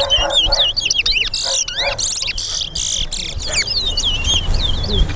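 Towa towa (chestnut-bellied seed finch) singing: a continuous run of quick, swooping whistled notes, with a louder, harsher stretch from about 1.5 to 3 seconds in.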